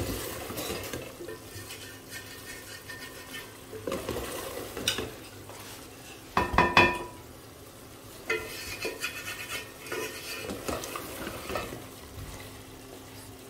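Wooden spoon stirring and scraping chicken masala in an aluminium pot on a gas stove, with knocks of the spoon against the pot; a louder clatter comes about six and a half seconds in.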